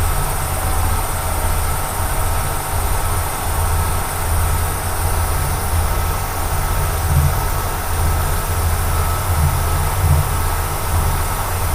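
Kearney & Trecker knee mill taking a heavy roughing cut in a metal block: a steady low rumble that wavers with the cutter's load over a constant hiss.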